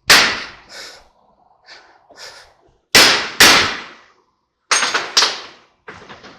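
Hammer striking a piece of round bar used as a drift against a U-joint snap ring on a truck's front drive shaft, knocking it to free the snap ring. About half a dozen sharp metal blows at uneven intervals, each ringing briefly.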